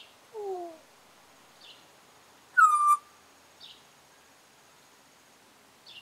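African grey parrot vocalizing: a low falling whistle about half a second in, then a loud, short, sharp call that dips slightly in pitch near the middle. Faint high chirps come about every two seconds.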